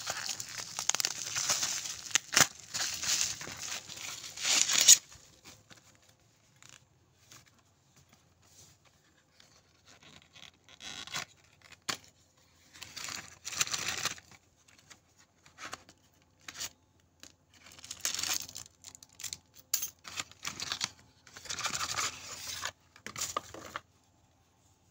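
Cardboard and plastic packaging being torn open and crinkled: continuous tearing and rustling for about five seconds, then scattered short crinkles and rustles of plastic wrap.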